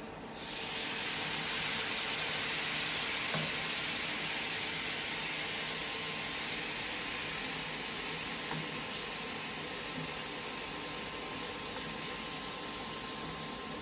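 Thick coconut milk sizzling in a hot pan of frying prawns: a loud hiss starts suddenly about half a second in, then slowly dies down as it is stirred.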